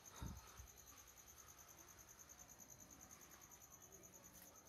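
Faint crickets chirping, a fast, even, high-pitched pulsing trill that runs on steadily. A short low thump of handling sounds just after the start.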